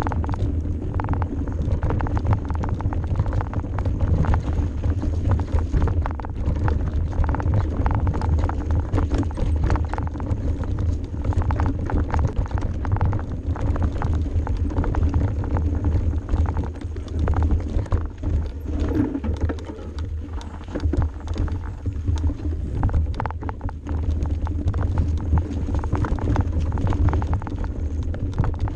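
Mountain bike descending a steep, rough dirt singletrack at speed: a steady low noise of tyres rolling over dirt, with dense, irregular rattles and knocks from the bike over roots and rocks.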